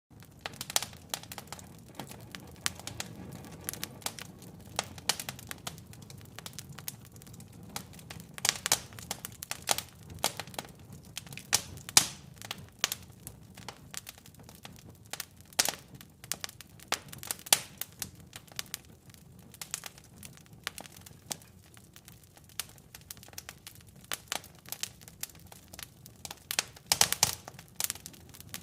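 Wood logs burning in a fireplace, crackling with irregular sharp pops and snaps over a low steady rumble of the flames. A denser cluster of louder pops comes near the end.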